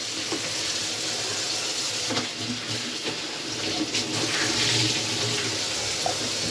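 Water running steadily from a tap into a kitchen sink.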